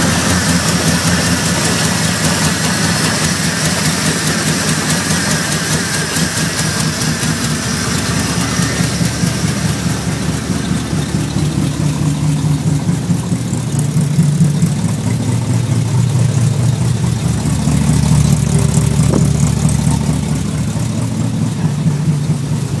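Ford 351 Windsor V8 idling steadily as it warms up from a cold start at −7 °C, with the choke closed. About ten seconds in, its higher tones fade and it runs on at a lower, deeper sound.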